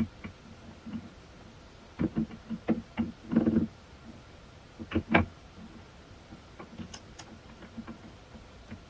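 Irregular metal knocks and clicks from a three-jaw lathe chuck being worked with its T-handle chuck key while the hex collet holder is turned in the jaws to index the worm to its next start. A quick cluster of knocks comes a couple of seconds in, the two loudest knocks come about five seconds in, and lighter ticks follow.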